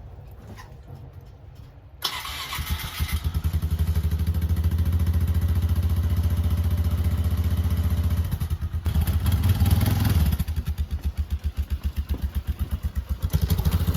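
Kawasaki Z1000's inline-four engine starting about two seconds in, then running at idle with an even, pulsing exhaust note. It dips briefly past the middle and swells once before settling back to idle.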